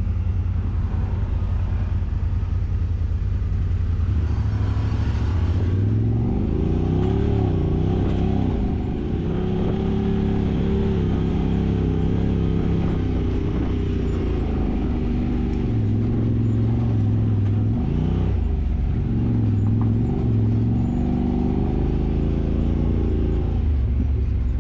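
Side-by-side UTV engine running under changing throttle, its pitch rising and falling again and again over a steady low rumble.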